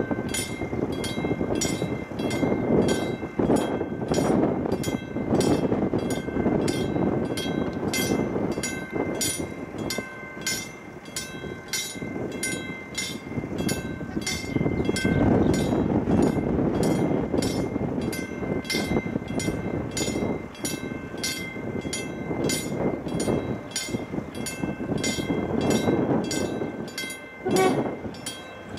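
Diesel-electric locomotive of an approaching passenger train (OSE class 220): engine and wheel rumble that swells and eases. An even, rapid high ticking runs throughout.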